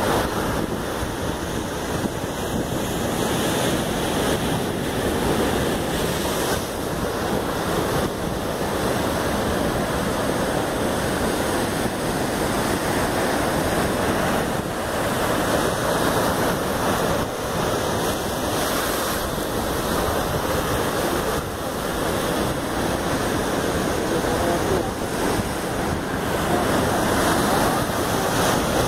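Heavy surf breaking and washing in around rocks: a continuous, steady rush of waves and foam.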